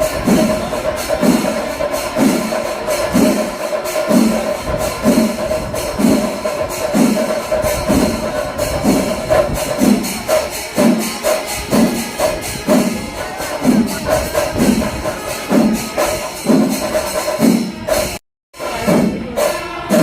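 Kerala temple percussion ensemble playing a steady rhythm: deep drum strokes about once a second over a continuous held tone with jingling cymbals. The sound cuts out briefly near the end.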